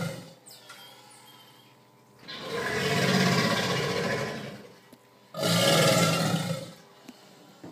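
Alligator giving long, deep, rough calls during mating: the tail of one call, then two more, each about one and a half to two and a half seconds long.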